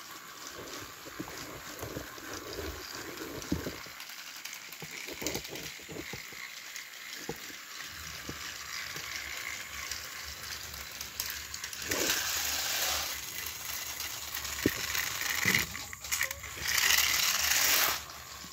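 Battery-powered Thomas & Friends toy engine running along plastic track, its small motor whirring and its wheels rattling and clicking. It gets louder about twelve seconds in and again near the end, then stops suddenly.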